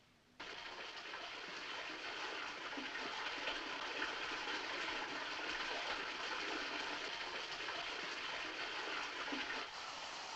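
Water gushing from a bath tap into a bathtub, filling it. It starts suddenly about half a second in, runs steadily, and drops a little in level near the end.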